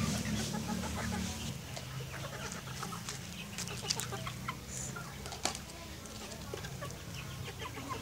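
Chickens clucking while they peck at grain, with a few sharp taps scattered through and a steady low hum underneath.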